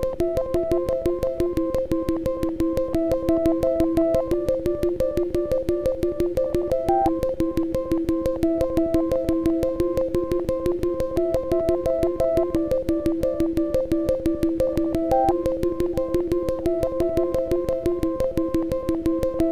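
Electronic synth-pop music: a rapid, even synthesizer pulse over two held notes, with a short bleeping melody that repeats above them.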